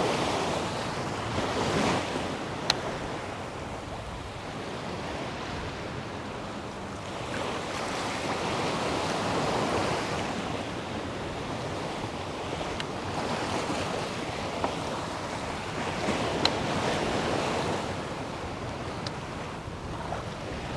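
Wind on the microphone and shallow bay water washing around, swelling and fading every few seconds, with a few brief clicks.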